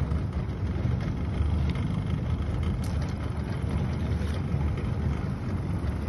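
Boat motor idling, a steady low rumble.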